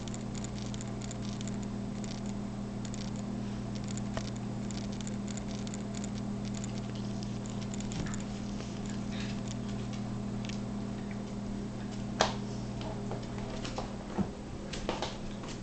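Claws of a Doberman pinscher puppy and a small scotchipoo clicking and pattering on the floor as they scramble in play, with a few louder sharp clicks near the end. A steady low hum runs underneath.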